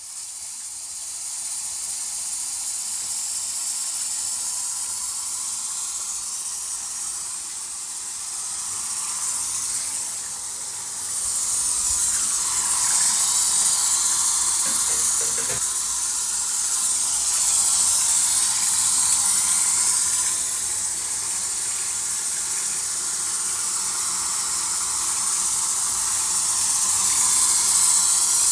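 Running water: a steady rushing hiss that swells and fades a little, getting louder a little over a third of the way in.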